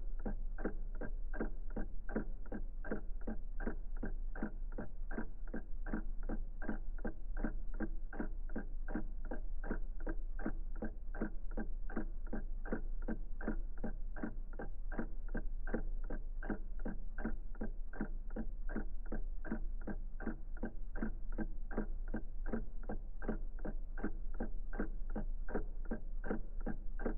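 Old mechanical clock ticking, about three even ticks a second, over a steady low hum.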